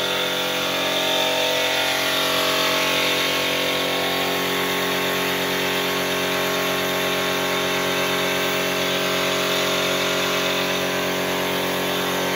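Paint spray gun hissing steadily as it sprays a door, over the steady hum of the air compressor that feeds it.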